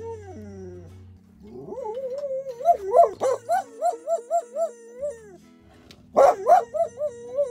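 Springer spaniel howling in a warbling, yodelling way, its pitch wobbling up and down several times a second: a falling howl at the start, a long wavering howl from just before two seconds to about five, and a louder one starting just after six seconds. Soft background music runs underneath.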